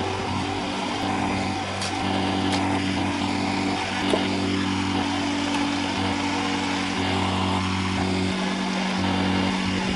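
Engine of heavy construction machinery running steadily with a low, even drone, and a few sharp clicks or knocks over it.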